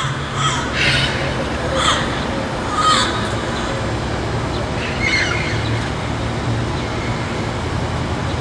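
Open-air courtyard ambience with a steady low hum, broken by several short high-pitched calls about a second apart in the first three seconds and one more about five seconds in.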